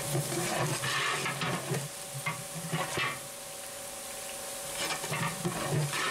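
Long-handled flat metal spatula scraping and stirring sliced onions frying in oil in a large aluminium pot, over a steady sizzle. The stirring comes in strokes, eases off a little past the middle, then picks up again near the end.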